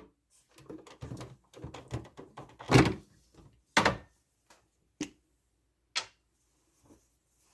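Plastic clicks and knocks as a refrigerator water filter cartridge and its housing are handled during a filter change. A run of small clicks comes first, then four sharper knocks about a second apart and a faint last one.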